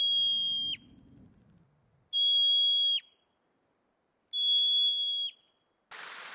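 Yellow-bellied marmot giving its alarm call: three long, high, even-pitched whistles about two seconds apart, each dropping sharply in pitch at its end. It is a warning to the colony of possible danger.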